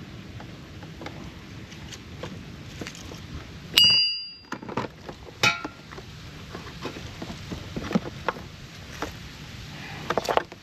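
Metal tools clinking and clanking against metal parts during hands-on work. About four seconds in there is one loud ringing clang, a second ringing clink comes a second and a half later, and small clicks and taps are scattered through the rest.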